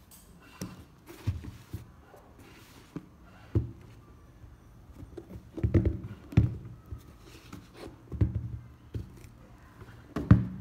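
Handling noise from a pair of sneakers being turned over and set down on a table: about seven irregular soft thumps and knocks, the loudest around the middle and near the end.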